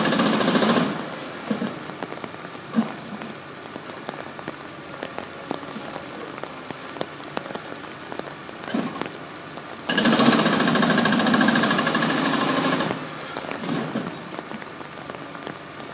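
Demolition excavator working on a concrete building: two loud bursts of fast, chattering machine noise, one brief at the start and one of about three seconds about ten seconds in. Between them, a steady hiss of rain and water spray with scattered knocks of falling debris.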